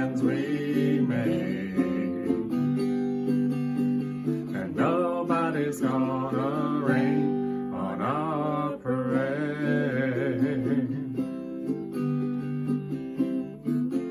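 Ukulele and acoustic guitar strummed together, with a woman singing over them in three phrases; after about eleven seconds the voice stops and the two instruments play on alone.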